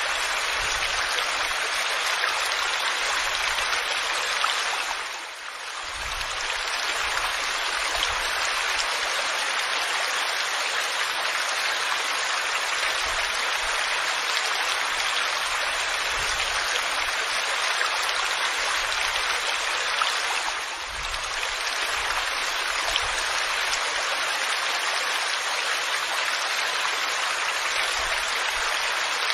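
Waterfall: a steady, even rush of falling water, dipping briefly in level twice, about five seconds in and again about twenty-one seconds in.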